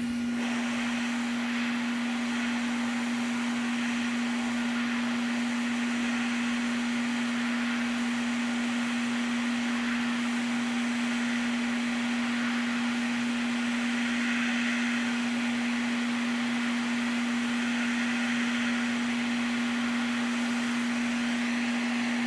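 Small electric blower running steadily: an even hiss of moving air over a constant hum.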